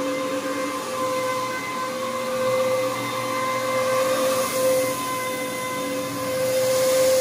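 Carpet-cleaning machine running steadily: a constant mechanical whine over a hiss, getting a little louder and hissier in the second half.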